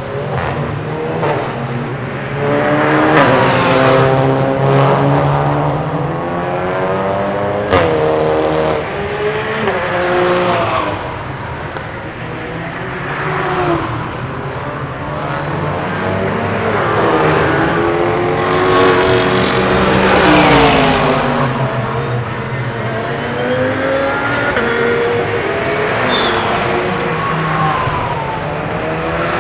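Several endurance race cars passing one after another at speed, their engine notes rising and falling through gear changes as each approaches and goes away. A sharp crack about eight seconds in.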